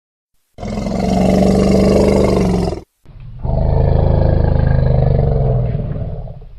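A large wild animal roaring twice, two long, deep, rough calls, the second somewhat longer and fading toward the end.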